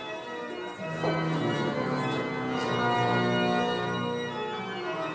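Organ music: slow, held chords that shift every couple of seconds.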